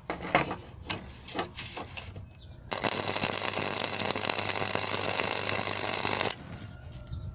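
Flux-core welder's arc crackling and sizzling steadily for about three and a half seconds as a weld is run on steel bar, starting and stopping abruptly. A few short sharp clicks come before it.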